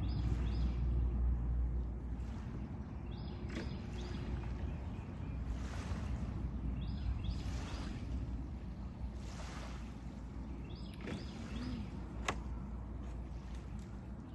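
A boat's outboard motor running at low idle as the boat comes in to the ramp to be beached, a steady low rumble that eases a little after the first couple of seconds.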